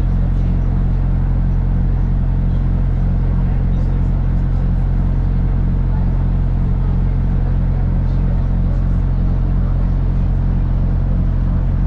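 Steady low engine drone of an airport apron bus, heard from inside the bus.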